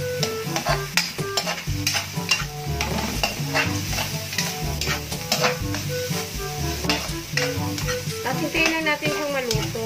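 Metal spatula scraping and clinking against an aluminium wok as ground beef is stir-fried, with a steady sizzle and many quick clicks of the spatula on the pan.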